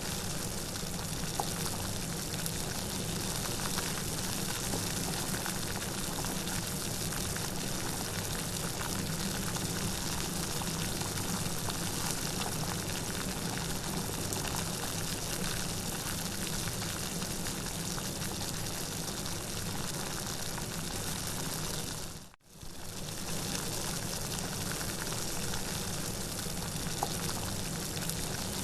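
Steady rainfall, an even rushing patter of rain. About three-quarters of the way through it dips out for a fraction of a second and comes straight back.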